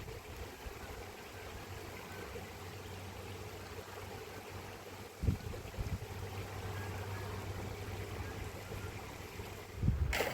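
Steady rush of running water from the storm and floodwater, with two brief low thumps about five and six seconds in.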